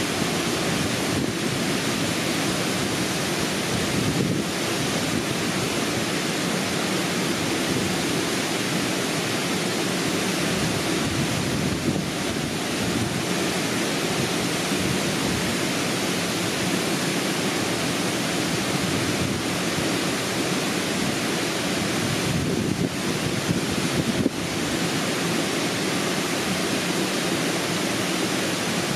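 Rushing water running with a steady, unbroken roar, with a couple of faint knocks near the middle and again toward the end.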